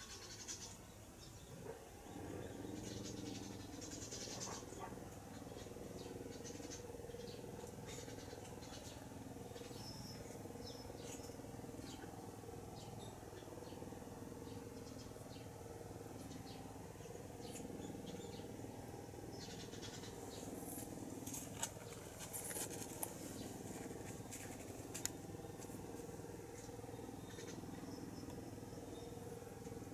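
Newborn kittens nursing and shuffling against their mother, with scattered small squeaks and ticks, busiest about two-thirds of the way in, over a steady low hum that sets in about two seconds in.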